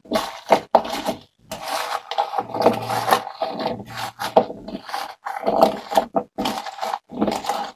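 Shredded carrot, daikon and green papaya being tossed and mixed with salt: irregular scraping and rustling strokes with short pauses between them.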